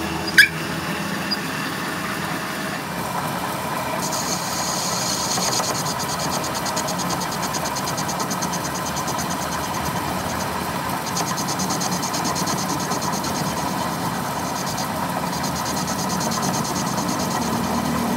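Metal lathe running, its cutting tool turning a metal workpiece: a steady machine hum with a high hissing cutting noise that starts about four seconds in and drops out briefly twice. A single sharp metallic clank about half a second in.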